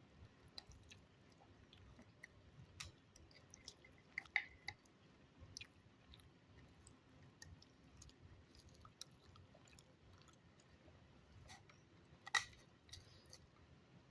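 Soft close-up chewing of omelette, with scattered small mouth clicks and a couple of sharper clicks, about four seconds in and near the end.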